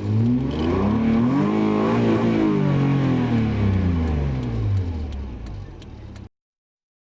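Car engine revved up and allowed to fall back, its pitch rising to a peak about two seconds in and then sinking. The sound cuts off abruptly about six seconds in.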